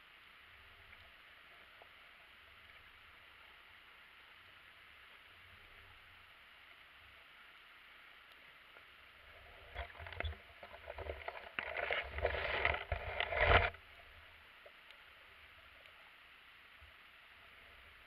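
Steady faint hiss of an underwater camera in its housing, broken about halfway through by some four seconds of clattering knocks and scraping as the camera rig tilts and is jostled.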